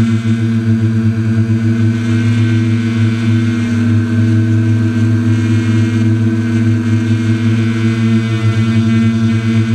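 Quadcopter's electric motors and propellers whirring at a steady pitch, heard from a camera mounted on the craft while it hovers.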